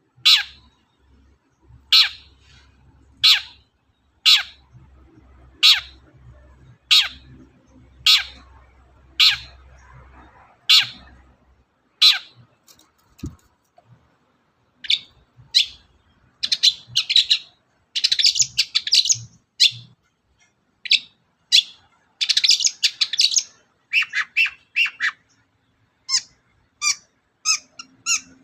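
Long-tailed shrike (cendet) calling: loud, harsh single calls about once a second for roughly the first twelve seconds. After a short pause it breaks into a varied, scratchy chattering song with dense runs of notes.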